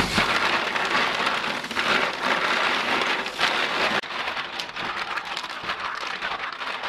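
Tap water pouring into a steel bowl of live mussels while hands rub the shells together. About four seconds in, the rushing water stops and what remains is splashing and the clatter of wet mussel shells knocking against each other as they are scrubbed.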